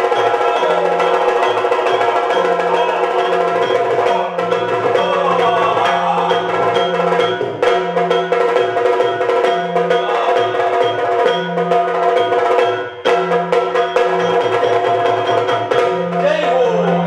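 Yakshagana instrumental accompaniment: drums struck in a steady rhythm, including the chende, over a continuous drone. The music breaks off for a moment about three-quarters of the way through.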